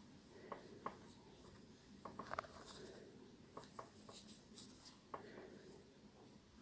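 Faint small clicks and rustles of a sewing needle and thread being worked through a needle-lace edging on fabric. A few scattered ticks, with the loudest cluster about two seconds in.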